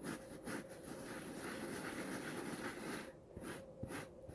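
Scrubbing a carpet stain soaked with hydrogen peroxide and dish soap: a steady scratchy rubbing that eases off about three seconds in, followed by a few light knocks.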